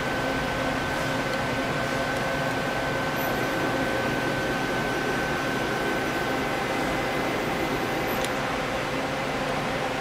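Doosan Puma 2500LSY CNC lathe running under power: a steady machine hum with a high, even whine that fades out about two-thirds of the way through.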